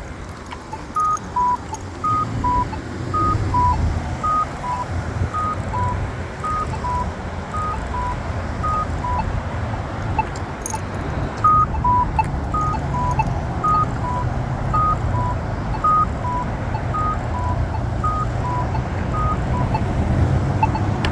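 Polara iNS accessible pedestrian signal sounding short electronic beeps that alternate between a higher and a lower tone, about two a second. The beeps break off for a couple of seconds midway, then resume, over a steady rumble of road traffic.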